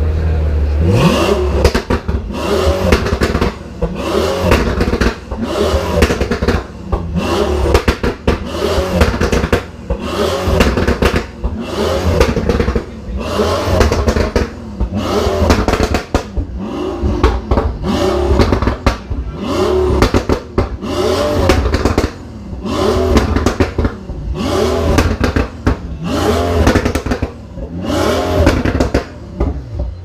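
Pagani Huayra BC's twin-turbo AMG V12 revved hard while standing still. The throttle is blipped over and over, about once a second, each rev rising and falling in pitch before the engine drops back to a low idle rumble.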